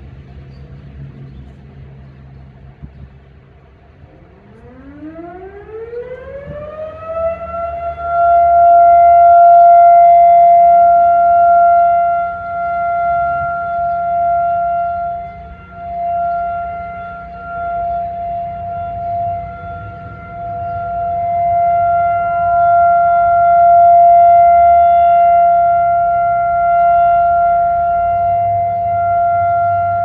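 Federal Signal STH-10 outdoor warning siren sounding for a test. It winds up with a rising wail about four seconds in, then holds one steady, loud tone that swells and fades every few seconds.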